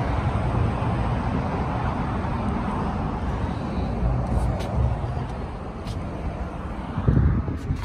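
Motor vehicle engine running with a steady low rumble, briefly louder about seven seconds in.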